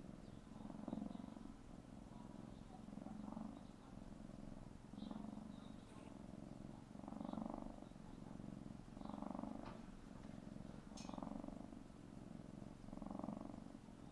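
Tabby kitten purring steadily, swelling and easing with each breath about every two seconds. A few faint clicks come through around the middle.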